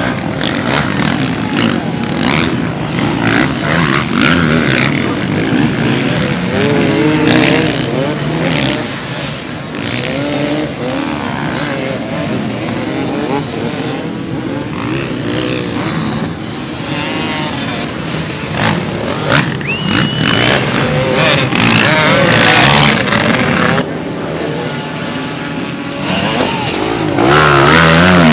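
Several off-road racing motorcycles running at once on a sand course, their engines revving up and down and overlapping. One bike gets louder as it passes close near the end.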